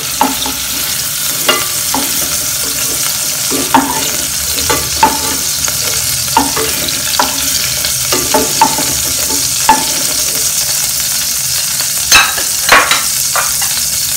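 Oil sizzling steadily in a metal saucepan as shrimp fry, while a wooden spatula repeatedly scrapes and knocks against the pan, lifting the fried shrimp out. The loudest knocks come near the end.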